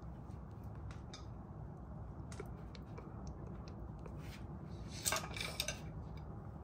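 Scattered light clicks and metallic clinks of hand tools and bolts being handled, with a short cluster of sharper clinks about five seconds in, over a steady low hum.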